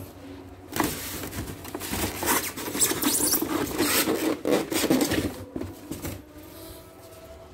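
Cardboard box flaps and styrofoam packing being handled, rubbing and squeaking against each other. The handling starts about a second in and dies down after about five seconds.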